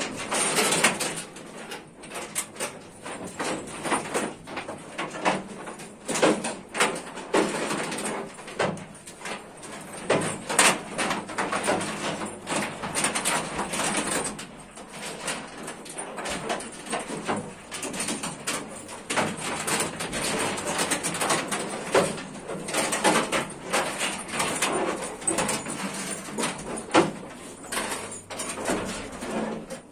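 Cattle barn sounds: a dense, irregular run of clicks, knocks and rustles, with no let-up.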